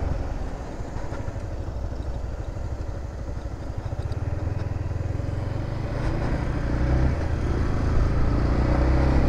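Yamaha MT-15 motorcycle on the move, heard from the rider's position: a low, steady rumble that grows louder over the last few seconds.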